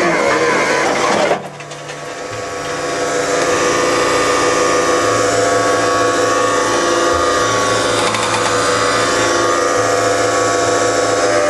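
Skid steer engine running steadily under hydraulic load. The sound drops suddenly about a second in, then builds back up over the next two seconds.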